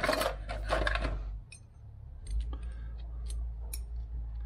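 Small metal parts being handled: a scuffing rustle for the first second and a half, then a scattering of light metallic clicks and clinks as the brake caliper mounting bolts and lock tabs are fingered over a metal parts tray.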